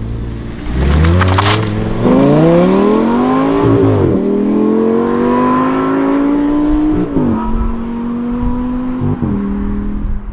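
Audi R8 V10 Spyder's 5.2-litre V10 accelerating hard, its note climbing through the revs and dropping sharply at upshifts about four and seven seconds in, with a smaller drop near the end.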